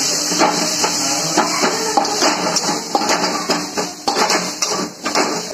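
A spatula scraping and clanking against a metal kadhai in quick, uneven strokes, stirring onion and garlic frying in oil.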